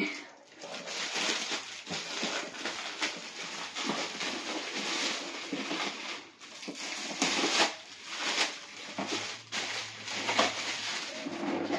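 Metallic foil gift-wrapping paper being torn and crinkled as it is pulled off a cardboard box: a continuous rustle broken by many short, sharp rips.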